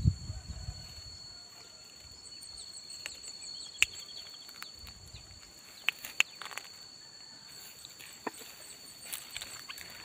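A steady high-pitched insect drone, with faint rapid chirping at times and a few sharp clicks and taps from hands fixing a decoy bulbul to a bamboo pole.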